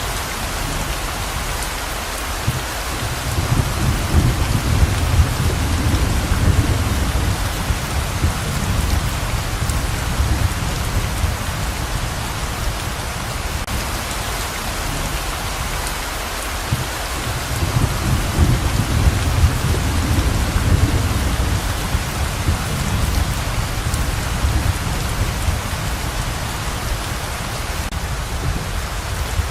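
Pouring rain, a steady hiss, with low rolls of thunder swelling twice: once a few seconds in and again a little past the middle.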